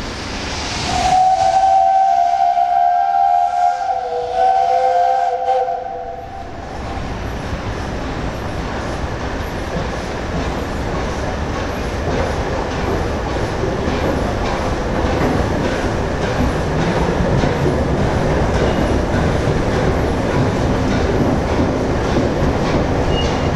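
Peppercorn A1 steam locomotive 60163 Tornado sounding a long whistle of about five seconds, briefly broken near the middle. Then the locomotive and its coaches run steadily past, with wheel noise over the rails.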